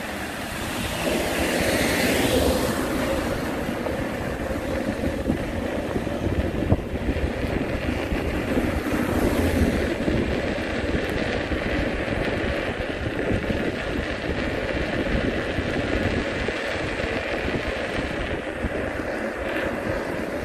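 Steady rumble of riding along a street, with wind on the microphone, and a single small knock about a third of the way through.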